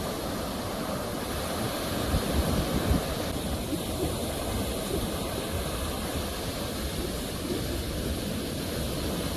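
Sea waves: a continuous rush of surf with a deep low rumble, swelling a little louder about two to three seconds in.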